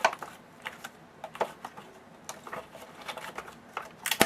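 Irregular clicks, taps and short scrapes of a tight-fitting cardboard trading-card box being handled and worked open by hand, with a sharper click at the start and another near the end.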